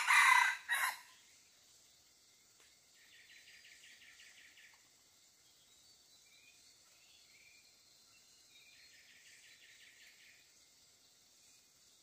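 A red junglefowl cock crows once, a short loud broken crow right at the start. Later a faint rapid trill sounds twice, several seconds apart, over quiet forest background.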